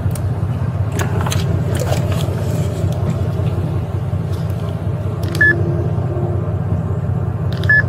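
Steady low rumble of an idling vehicle, with a few light clicks and two short high beeps, about five and a half and seven and a half seconds in, from a mobile fingerprint scanner reading a finger.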